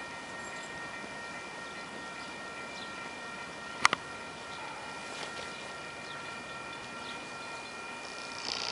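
Steady high-pitched ringing of a railroad crossing warning bell as a train approaches, with a sharp double click about four seconds in. The approaching train's noise starts to build near the end.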